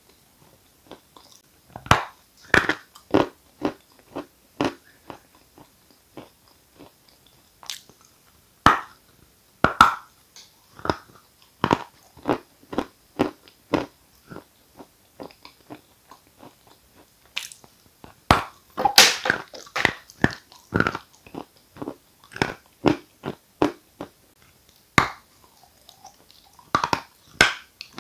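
Close-miked biting and chewing of a block of dry 'Giant' edible chalk: sharp, irregular crunches as pieces snap off, then softer chewing between bites. The loudest burst of crunches comes about two-thirds of the way in.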